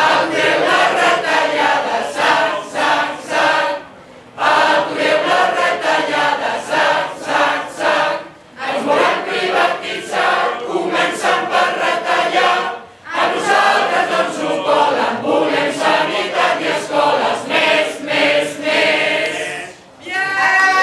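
Large group of men and women singing a Christmas carol in Catalan together, in phrases with brief breaks for breath between them.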